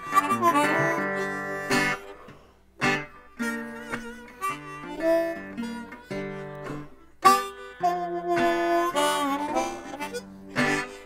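Blues slide guitar on a resonator guitar, played with a metal slide: picked notes and chords that glide and waver in pitch, with short breaks between phrases.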